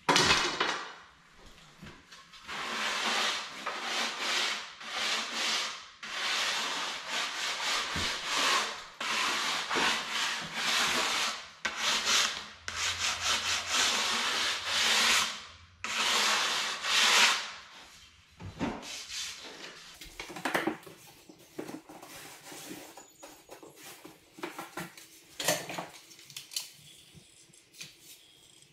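Repeated rasping strokes of hand-working a pine board, sanding or rubbing along the wood, roughly one stroke a second for about fifteen seconds after an opening knock. Near the end come quieter knocks and clicks as the board is handled.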